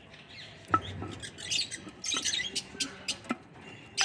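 High, squeaky chirps from Indian ringneck parakeets, coming in quick clusters, with a few sharp knocks from the clay-pot nest box being handled.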